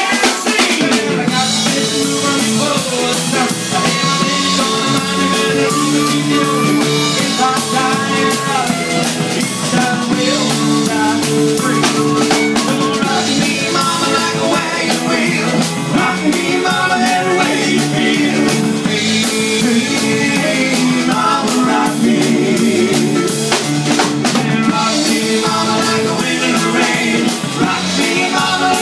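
Live rock band playing amplified: saxophone, electric keyboard, electric guitar and drum kit.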